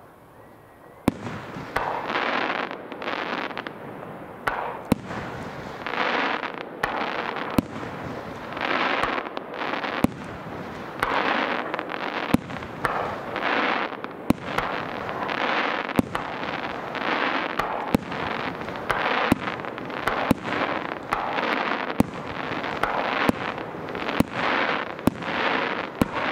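Aerial fireworks shells bursting in a steady barrage: sharp bangs about once a second, each followed by a hissing crackle of bursting stars. The barrage starts about a second in, after a brief lull.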